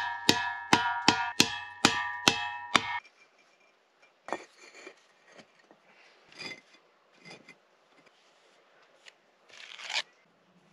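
A hammer striking the cut top of a steel gas cylinder about three times a second, the metal ringing at several pitches with each blow, stopping after about three seconds. Then quieter scraping and clinking of bricks and a brick trowel, with a louder scrape near the end.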